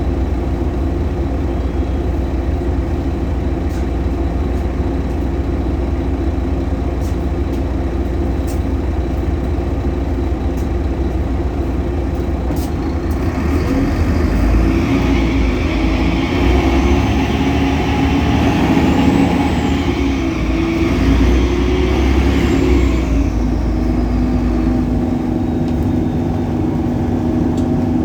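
Solaris Urbino 18 bus's DAF Paccar PR265 diesel engine running steadily, then about halfway through it rises in load as the bus pulls through its ZF Ecolife automatic gearbox, with a high whine that rises and falls twice before settling back to a steady run near the end.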